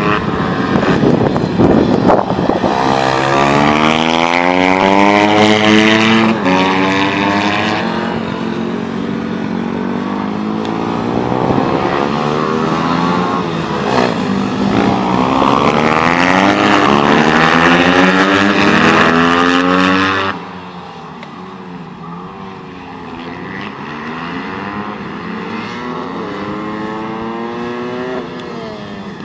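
Several pit bikes' small single-cylinder engines revving hard as they lap a track, the pitch climbing and dropping again and again with the throttle as the bikes overlap. About twenty seconds in the sound drops noticeably quieter as the bikes move farther off.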